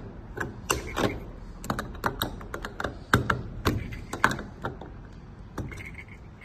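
A screwdriver tightening the screw that closes a metal wall-lamp base, with small irregular metal clicks and scrapes as the tip turns and the parts are handled. The clicks stop near the end.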